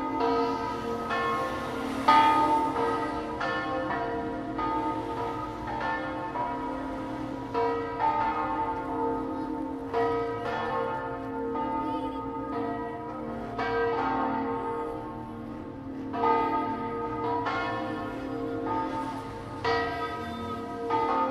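Church tower bells ringing a peal: strike after strike, roughly one or two a second, each stroke ringing on and overlapping the next.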